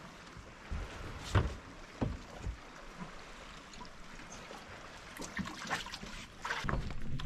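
Sharp knocks and clunks from a hinged plastic hatch lid being lifted on an aluminium jon boat while the compartment below is rummaged in: a few single knocks in the first half, then a quicker run of clatters near the end, over a faint steady hiss of water.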